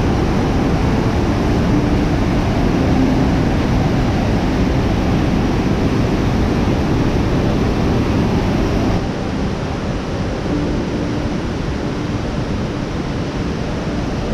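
Waterfall roaring: a loud, steady rush of falling water that drops slightly in level about nine seconds in.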